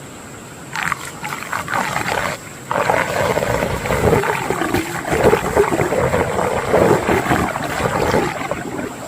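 Water gurgling and churning in a whirlpool in a stream. It starts about a second in, drops out briefly near the third second, then carries on.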